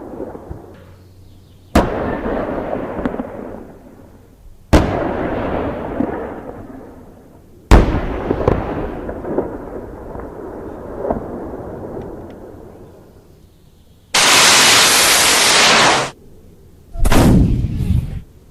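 Three single heavy gunshots about three seconds apart, each trailing off in a long echoing rumble. Near the end comes a loud, steady rush of noise lasting about two seconds, then a short cluster of sharp shots.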